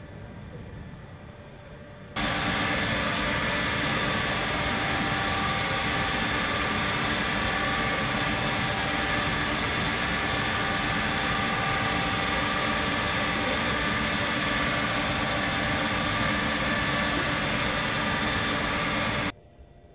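Stationary EN57AL electric multiple unit's onboard equipment running, heard close beside the car: a loud, steady whooshing hiss with a constant hum of several tones. It starts suddenly about two seconds in and cuts off abruptly near the end.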